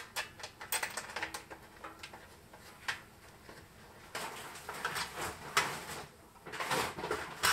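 Small metal clicks and scrapes as nuts and bolts are fitted by hand into the thin sheet-steel walls of a jerry can, with a louder patch of scraping and handling near the end.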